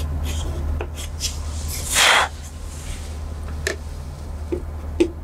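Chalk drawing a line along a wooden set square on a chalkboard: one loud scraping stroke about two seconds in, with a few sharp knocks as the set square and chalk meet the board, over a steady low hum.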